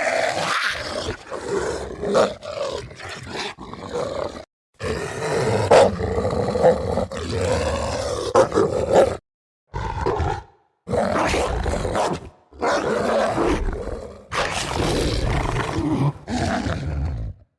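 Movie werewolf sound effects: a run of harsh, growling monster roars played as about five separate clips, each cut off by a brief silence.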